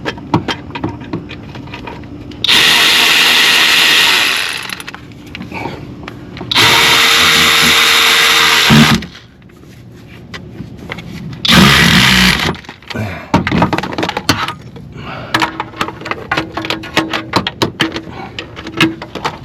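A handheld power tool, such as a drill, impact driver or electric ratchet, runs in three bursts: about two seconds, then two seconds, then one second. Between and after the bursts there are short clicks and clinks of metal tools.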